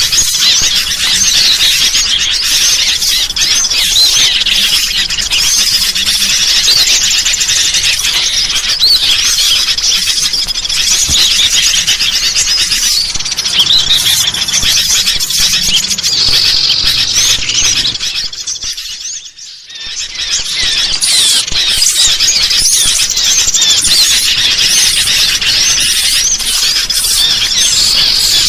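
Dense, continuous chorus of high-pitched bird calls: a bird-luring recording of noisy sooty-headed bulbuls mixed with small songbirds. It dips out briefly about two-thirds of the way through, then comes straight back.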